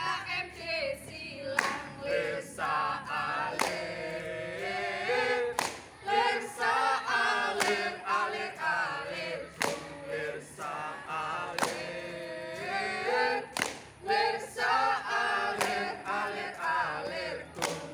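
A group of boys and girls singing a yel-yel cheer together in unison, unaccompanied, with a sharp hit keeping time about every two seconds.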